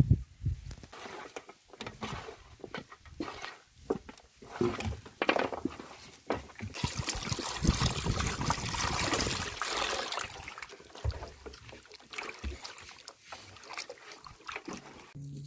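Raw mutton pieces being washed by hand in water with turmeric powder: water sloshing and trickling, with scattered knocks from the handling. A denser, steady rush of water runs from about seven to ten seconds in.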